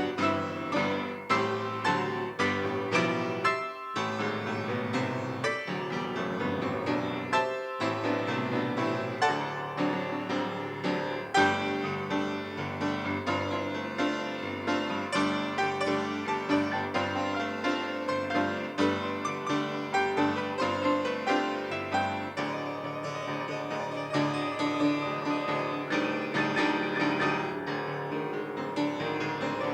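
Instrumental piano music with many struck notes and chords, briefly dropping away twice in the first eight seconds.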